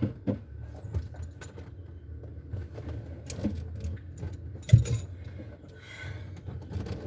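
Scattered metallic clicks and clanks of tools and small parts being handled, with one louder knock nearly five seconds in.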